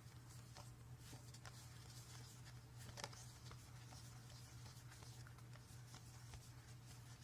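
Faint clicks and rustle of Magic: The Gathering cards being handled and flipped through, the most distinct click about three seconds in, over a low steady hum.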